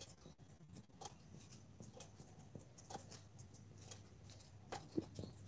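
Near silence with faint, scattered taps and light scratches of touches on a tablet's touchscreen as handwritten annotations are erased, over a low steady hum; the clearest taps come near the end.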